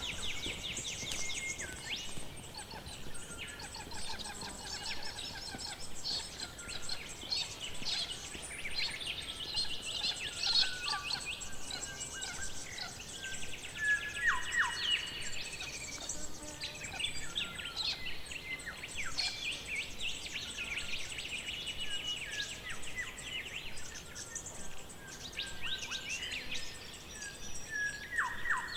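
Forest ambience of several birds singing and calling over one another: rapid chirps and trills throughout, with a few short falling whistles.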